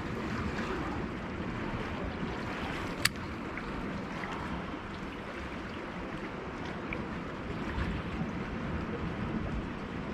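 Steady wash of sea waves, with one sharp click about three seconds in.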